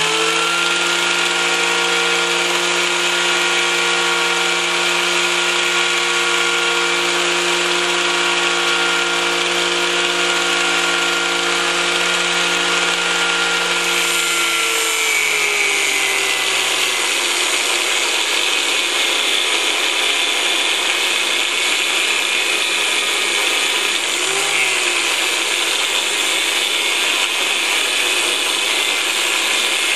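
Angle grinder with a cut-off disc running free with a steady whine, then from about halfway through grinding into a metal workpiece: the motor pitch sags under the load and a harsh grinding hiss takes over.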